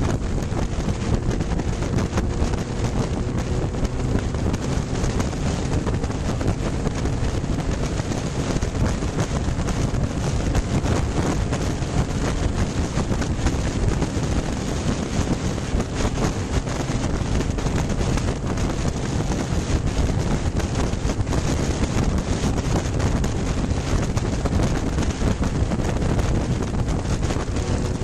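Steady wind rush buffeting the microphone of a camera mounted on a moving motorcycle at road speed, with the Honda CB900F's inline-four engine running underneath at a steady pace.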